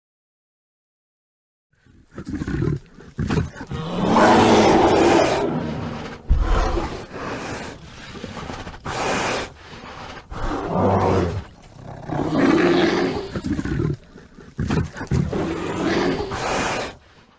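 American black bear growling and roaring in a series of about eight rough calls, each a second or two long, starting about two seconds in.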